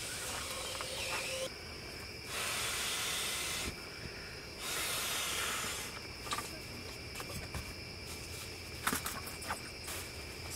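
Three even hissing sounds, each about a second and a half long, over steady chirping of crickets. From about the middle on, soft rustling and a few light clicks as bedding is moved.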